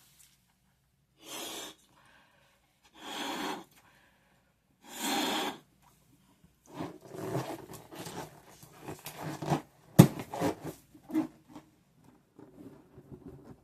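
Three short breaths blown into a balloon, about half a second each, then crackly rubbing and squeaking of the balloon being handled, with one sharp, loud pop about ten seconds in.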